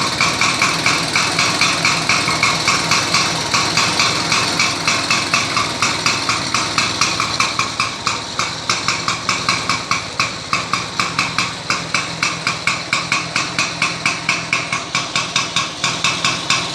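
Atco Standard lawn mower's small petrol engine running steadily at low speed, each firing stroke heard as a sharp, even knocking beat about five times a second. It settles slightly quieter about halfway through.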